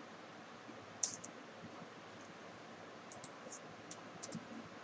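Computer keyboard keys clicking as a search query is typed: a single keystroke about a second in, then a handful of quick keystrokes near the end, over a faint steady hiss.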